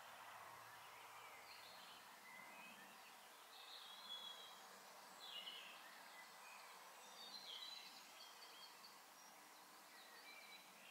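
Faint birdsong: short chirping phrases from small birds, a few seconds apart, over a steady background hiss.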